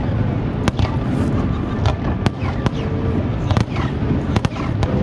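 Aerial fireworks display: a string of sharp cracks and bangs, about eight in five seconds, over a steady low rumble of booms.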